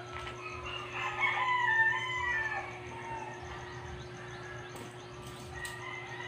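A rooster crowing about a second in, with a long call of bending pitch lasting around two seconds, over a steady low hum.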